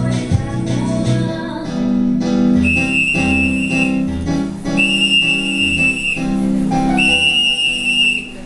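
Music playing, with a high, steady whistle blown three times, each held about a second and a half, like a train whistle.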